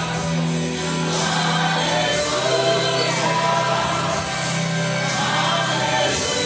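Music with singing over held chords and a sustained bass line, the bass note changing about two seconds in and again past four seconds.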